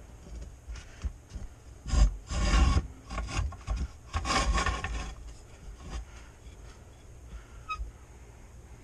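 Rubbing and scraping handling noise in a few short rasping bursts, the loudest about two seconds in and another about four seconds in, with scattered knocks between.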